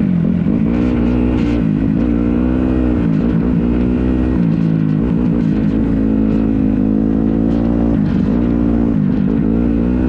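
Dirt bike engine under way on a trail, its revs climbing and dropping back several times as the throttle is worked.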